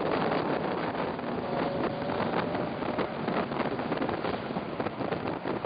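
Cobra race car's engine running at track speed, heard from the open cockpit under heavy wind buffeting on the microphone, with a constant crackling rush.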